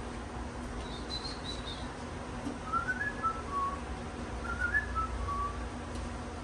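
Someone whistling two short phrases of a few notes each, rising then stepping down in pitch, with a few fainter high chirps just before.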